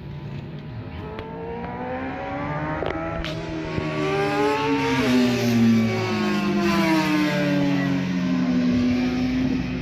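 Racing motorcycle on the circuit, its engine note climbing in pitch and loudness as it comes closer, then dropping sharply as it passes about five seconds in and falling away. A second, lower engine note runs underneath in the first half.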